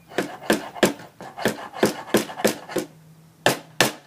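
Hammer driving a nail into a wooden birdhouse: about a dozen quick blows, roughly three a second, with a short pause near the end before two more.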